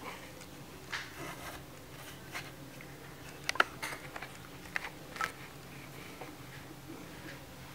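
Fingers rubbing inside a cat's ear and through its fur, close to the microphone: soft rustling with scattered short clicks, the sharpest about three and a half seconds in.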